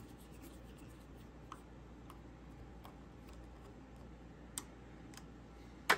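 Screwdriver backing a small screw out of a rifle receiver's scope-mount hole: a few faint, scattered clicks and ticks of metal on metal, the sharpest near the end.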